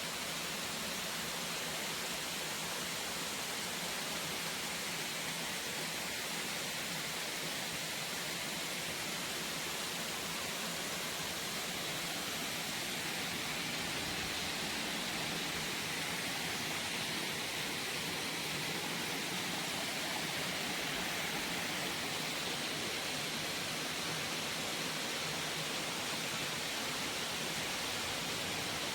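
Multi-tiered waterfall: a steady, unbroken rush of falling water.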